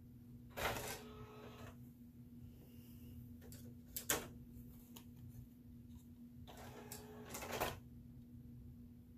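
Toshiba DR-5 DVD recorder's disc tray motor: the tray runs out with a short whirring slide about half a second in, a sharp click comes about four seconds in, and the tray runs back in from about six and a half seconds, ending with a clunk as the player begins loading the disc. A steady low hum sits underneath.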